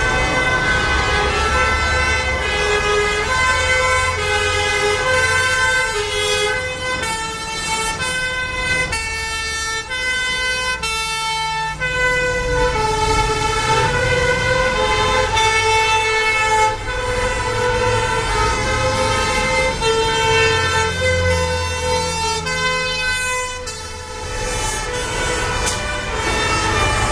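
Two-tone sirens of several fire engines sounding at once, each stepping back and forth between two notes, out of step with one another. Truck engines run underneath.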